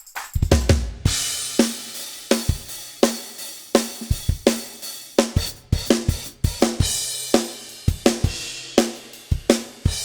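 Drum kit playing a steady beat: kick drum and ringing snare hits over a continuous wash of hi-hat and cymbals, with a loud crash about half a second in.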